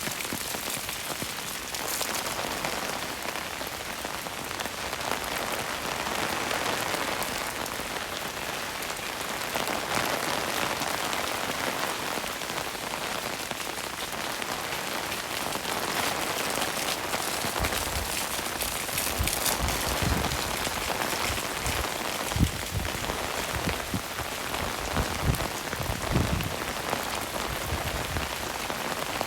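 Steady rain falling on a wet street, an even hiss. In the second half, scattered low thumps and a few sharper knocks sound over it.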